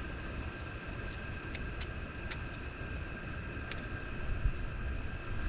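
Wind rumbling on the microphone, with a steady faint high tone and a few light clicks from handling.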